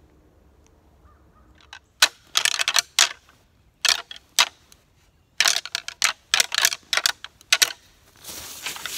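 A pair of deer rattling antlers clashed and ground together in repeated bursts of clattering clicks, starting about two seconds in, with a longer rubbing stretch near the end. This is antler rattling, imitating two bucks sparring to draw in a buck.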